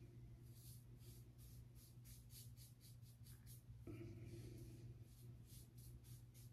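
Blackbird stainless-steel open-comb safety razor scraping over a lathered scalp in quick, short, faint scratchy strokes, about three or four a second, with a short break near the middle.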